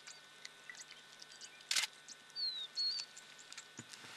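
Scattered faint ticks and one loud, sharp crack a little under two seconds in. A bird gives a short falling whistle twice around the middle.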